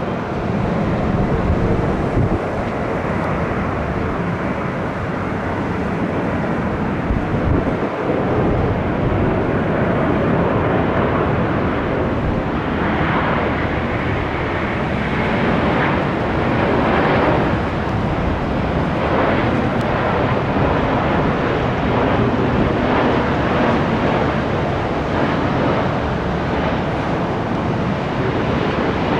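Steady loud roar of an Airbus A350-900's Rolls-Royce Trent XWB jet engines and rushing air, with a deep rumble under a hiss. It turns a little brighter about halfway through.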